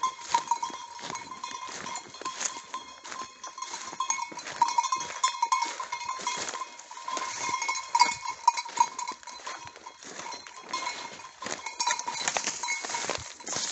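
A dog bell on a hunting English setter ringing steadily and unevenly as the dog moves through cover, with the crunch of footsteps in dry leaves and twigs throughout.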